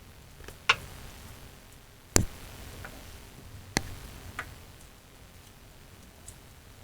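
Four sharp, irregularly spaced clicks and knocks of something hard being handled or set down, the second the loudest.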